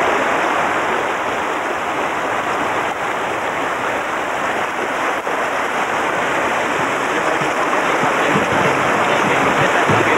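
Rushing river water running over shallow rapids: a steady, loud rush.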